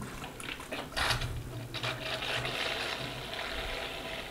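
Young wheat beer running from a fermenter tap through a hose into a plastic bottle at the start of bottling: a few small clicks and knocks of the hose and bottle being handled, then from about two seconds in a steady trickle of liquid filling the bottle.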